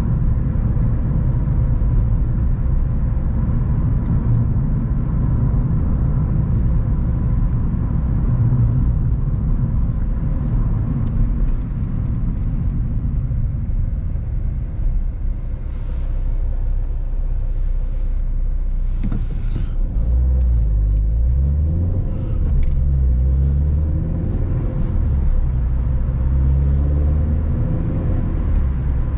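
Car driving, with a steady low engine and road rumble; from about two-thirds of the way in, the engine pitch rises several times in steps as the car accelerates through the gears.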